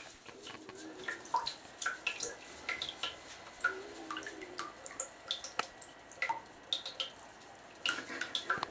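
Small water plinks and splashes in a shallow bathtub as a baby muskrat paddles about, irregular and a few a second.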